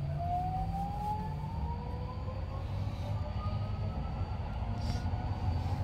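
Inside an Incheon Subway Line 2 car: the electric train's traction motors whine, rising steadily in pitch as the train accelerates out of the station, over a steady low rumble of the running gear. The whine fades into the rumble after about three and a half seconds.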